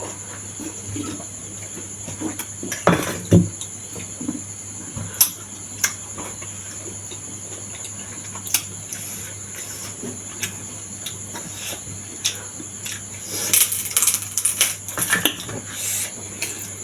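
Close-miked eating sounds: chewing and mouth clicks, with the odd clink of a utensil against the dish. They come as scattered short sounds, busier about three seconds in and again near the end.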